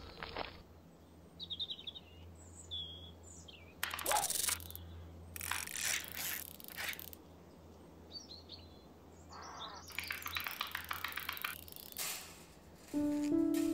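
Quiet garden ambience with a few brief bird chirps, broken by several short scraping, rustling noises, one of them as a trowel digs into soil. Music with held notes comes in near the end.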